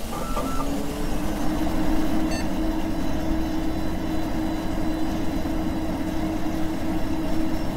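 Steady low rumbling drone of noise with a constant hum running through it, a sound effect laid under a TV-static picture.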